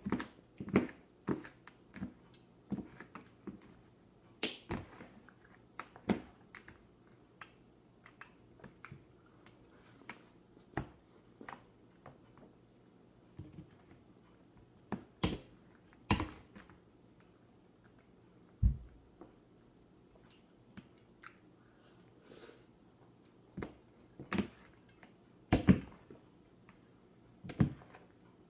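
Giant fork and large spoon clinking and knocking against a plate of pasta: irregular sharp clinks with short quiet gaps, a few of them louder.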